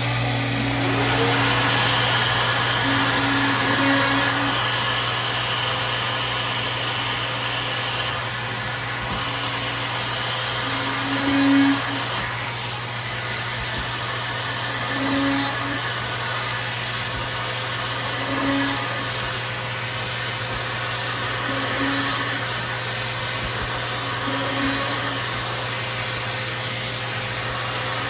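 Festool OF1010 plunge router running steadily over a constant suction drone while it bores a row of holes through a drilling jig, with a short rise in sound about every three seconds as each hole is plunged.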